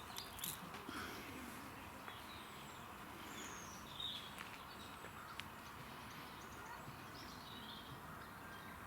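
Faint outdoor ambience: a steady background hiss with scattered short bird chirps, and a few light clicks in the first second.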